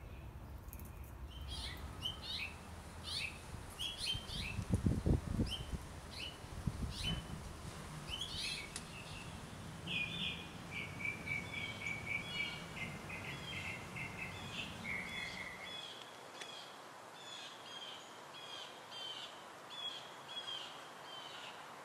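Small birds chirping and calling over and over, with a run of rapid trilled notes in the middle, over a low outdoor rumble. A few low thumps come about five seconds in.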